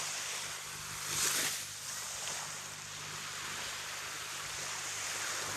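Sea waves washing onto a beach: a steady hiss of surf, with one wave swelling louder about a second in.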